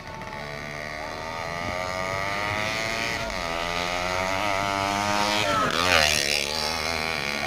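Motorcycle engine approaching, rising in pitch and getting louder as it accelerates. About six seconds in it passes close by and its pitch drops sharply.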